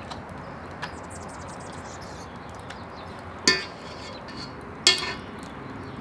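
A metal spoon clinks twice against a stainless steel mixing bowl, about a second and a half apart, ringing briefly each time, as spoonfuls of butter are knocked off into the flour.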